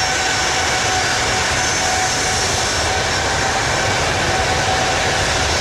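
Jet aircraft engine sound: a steady rushing noise with a faint high whine.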